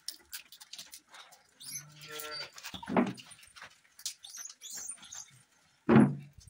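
Short harsh animal calls, the loudest about six seconds in, among light scattered clicks.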